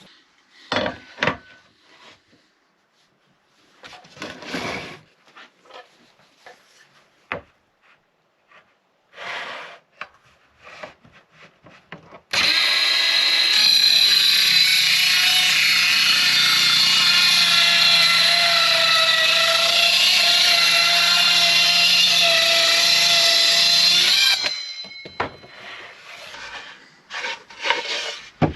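Wooden pieces knocked and handled, then an electric power tool runs steadily for about twelve seconds and stops suddenly, followed by more clattering of wood.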